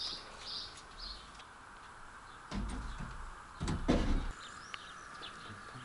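A few faint bird chirps, then two clattering knocks about two and a half and three and a half seconds in as a steel rebar cage is hoisted up a ladder and bumps against the wooden roof beams.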